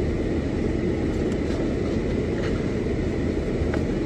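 Steady low rumble of a car heard from inside the cabin, engine and road noise, with a few faint clicks.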